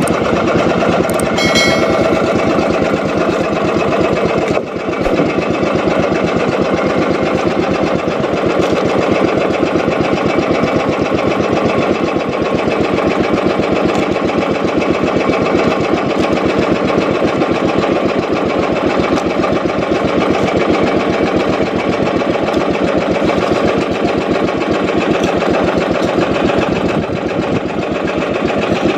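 A small fishing boat's engine running steadily, with a rapid, even putter that dips briefly about five seconds in.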